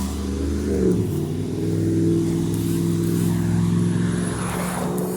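A motor vehicle's engine running steadily, its pitch shifting about a second in and then holding steady.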